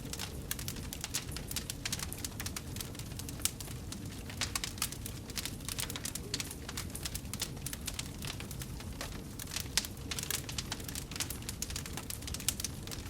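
Wood fire burning in a fireplace: a low steady rumble of flames under dense, irregular crackles and pops.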